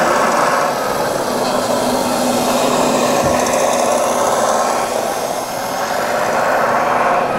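A radio-controlled model tractor driving, its small electric drive and gears making a steady whirring, grinding noise over a constant low hum.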